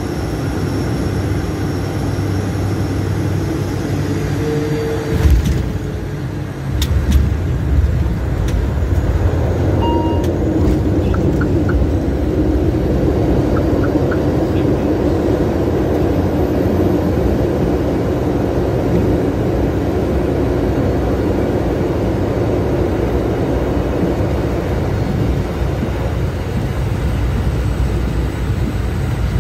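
ATR 72-600 turboprop rolling out on the runway just after touchdown, heard from the cockpit: a steady rumble of its Pratt & Whitney PW127M engines and propellers with wheel and runway noise. A single thump comes about five seconds in, and the rumble grows louder and heavier about seven seconds in.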